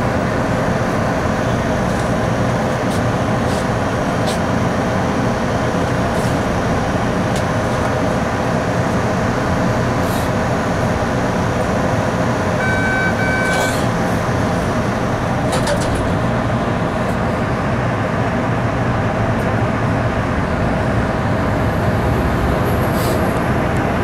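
Steady interior noise of an MBTA Red Line 01800-series subway car heard from its rear cab: an even rumble with a faint whine and a few light clicks. A short two-tone electronic beep sounds about halfway through.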